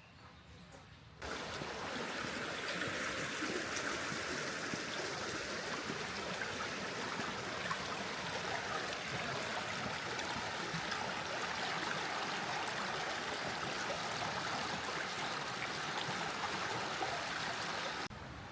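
Flowing water running steadily, a constant rush and trickle of a stream or canal. It cuts in suddenly about a second in and cuts out just before the end.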